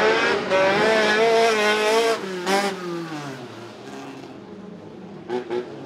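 Autocross car engine revving hard at high rpm, its note wavering up and down as it slides through the mud; after about two and a half seconds the pitch drops and fades as the car moves away, and a few short rev blips come near the end.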